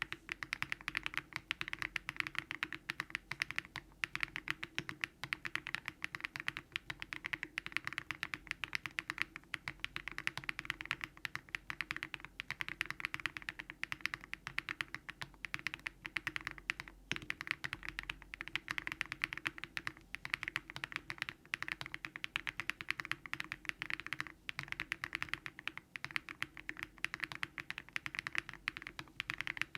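Continuous fast typing on a Daring Run Polygon-7 custom mechanical keyboard built with Keygeek LM switches, full foam and a polypropylene (PP) plate.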